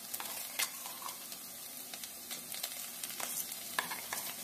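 Sliced onions frying in oil in a nonstick pan: a steady sizzle with a few sharp clicks and pops as spoonfuls of wet ground masala paste go in.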